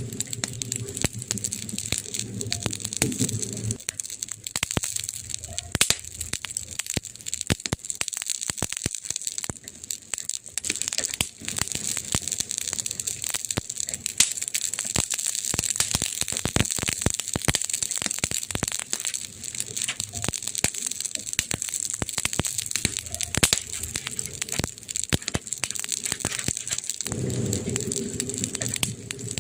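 Wood fire crackling, with dense sharp pops and snaps over a steady hiss and a few louder pops. A low rumble sits underneath for the first few seconds, drops out, and returns near the end.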